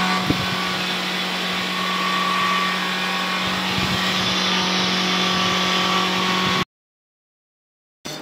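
Tray drier's electric blower fan and motor running, a steady hum with a constant low tone and a rushing air noise; it cuts off abruptly about six and a half seconds in.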